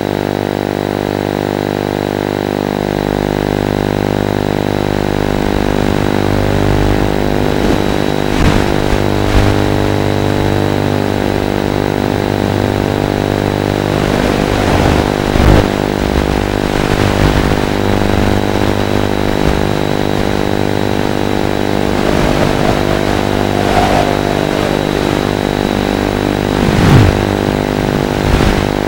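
Steady, unchanging buzz from the analog FPV video link's recorded audio channel, with a thin high whine above it. A few brief sweeping whines and crackles are heard around the middle and near the end.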